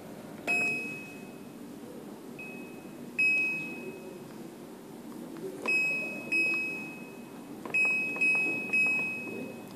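Control panel of a Godrej Glitz 6.5 kg washing machine giving short single-pitched beeps, about eight at uneven intervals, each beep a button press as options and settings are selected.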